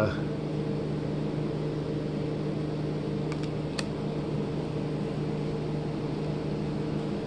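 Steady mechanical hum in the room, with a few faint clicks a little over three seconds in.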